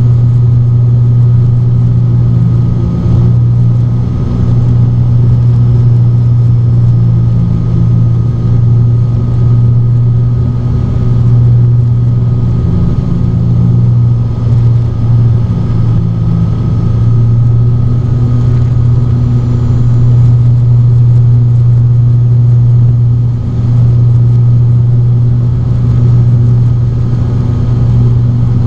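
Steady low drone of an ATR 42-600's Pratt & Whitney PW127 turboprops and six-blade propellers, heard from inside the passenger cabin in cruise flight, with a fainter steady whine above the drone.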